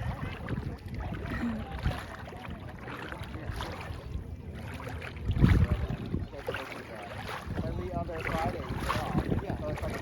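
Shallow water sloshing around people wading, with wind rumbling on the microphone and a loud low buffet about halfway through.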